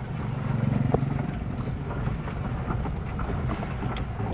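Vehicle engine running at low revs while driving over a rough, broken road, with a few sharp knocks and rattles.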